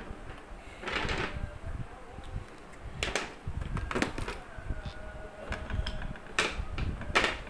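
Several sharp, irregularly spaced plastic clicks and knocks from thin PVC pipe rings, a marker pen and a hacksaw being handled on a tabletop.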